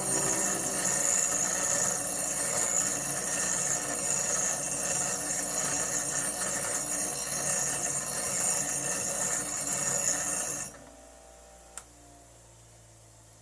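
Vevor 8-inch variable-speed bench grinder with its 5-amp brushless motor running at speed: a steady whine over a dense high hiss. It cuts off suddenly about eleven seconds in, and a single sharp click follows about a second later.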